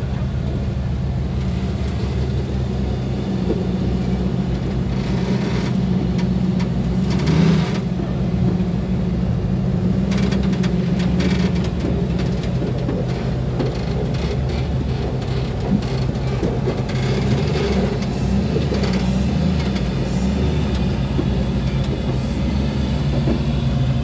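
Rock-crawling buggy engine running steadily at low revs over rough ground, with a couple of short, louder rushes of noise.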